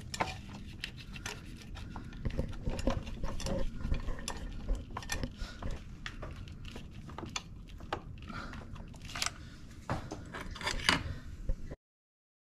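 Irregular small metallic clinks and clicks of hand tools and fittings being handled while hoses are worked on in a car's engine bay. The sound cuts off suddenly near the end.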